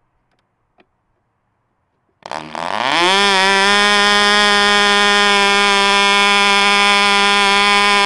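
Fox 35 two-stroke glow model-aircraft engine catching from the electric starter about two seconds in, revving up quickly and then running steadily at high speed.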